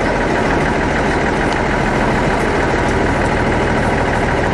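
Off-road vehicle engine idling close by, a steady running sound that holds unchanged throughout.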